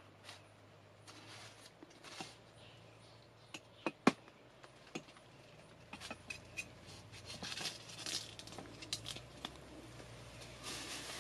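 Dry bamboo leaves and twigs rustling and crackling as someone moves and works inside a bamboo clump, with a few sharp snaps, the loudest about four seconds in.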